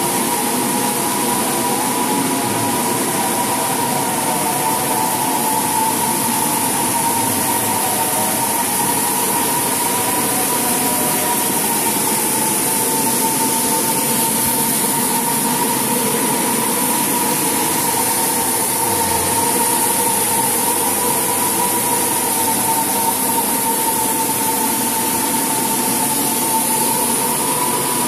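Parquet floor machinery running steadily: the motors of a dust extractor and a rotary floor machine give a steady high whine with a wavering hum beneath it and a constant hiss.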